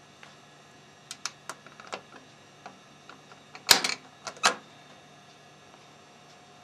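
Sharp mechanical clicks from a Rock-ola Tempo II jukebox: a few light clicks, then a louder clatter a little past halfway, followed by two more clicks, over a steady low hum.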